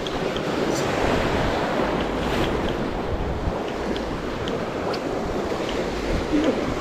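Sea waves breaking and washing over shore rocks, a steady surf noise, with wind buffeting the microphone. A few faint short ticks sound through it.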